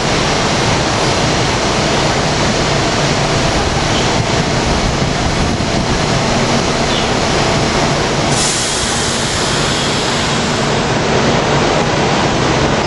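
SEPTA Silverliner V electric train standing at the platform, its onboard equipment running with a steady, dense noise and a faint hum. About eight seconds in, a higher hiss joins for roughly two seconds.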